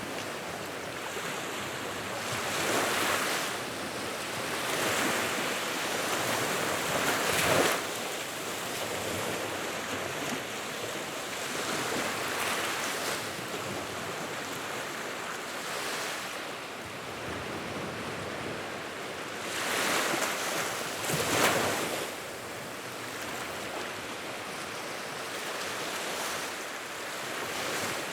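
Fireplace fire: a steady rushing hiss of flames that swells every few seconds, with a couple of sharper cracks.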